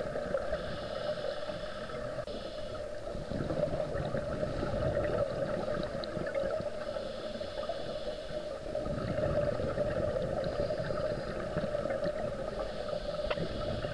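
Underwater sound of scuba breathing: hissing regulator breaths and gurgling exhaled bubbles that come and go every few seconds, over a steady hum.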